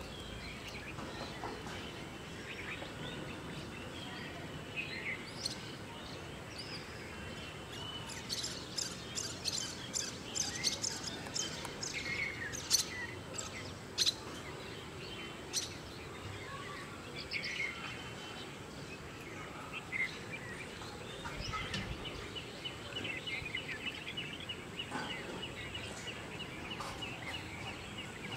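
Small birds chirping and calling over a low outdoor background hum, with a flurry of short sharp calls about a third of the way in and a rapid trill near the end.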